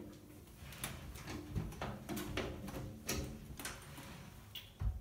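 Irregular clicks and light knocks, a few a second, as the height of a sliding mirror closet door is adjusted to level it on its track. A low thump comes near the end.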